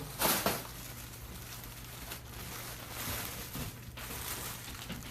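Packaging being handled and rustled, with a brief loud crinkle about a quarter second in, then quieter intermittent rustling over a steady low hum.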